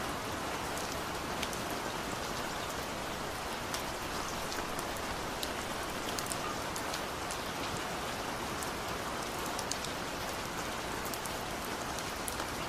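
Steady, even hiss like falling rain, with scattered light ticks throughout.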